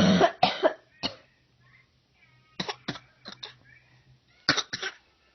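A series of short, harsh coughs in three quick clusters: about three at the start, four in the middle and two near the end. They are fake coughs, which the listener takes for mocking.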